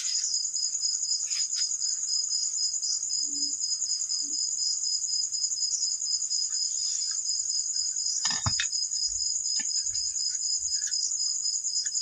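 Steady high-pitched insect chirping, a fast, even pulsing trill. A few faint clicks and a short knock come about eight seconds in.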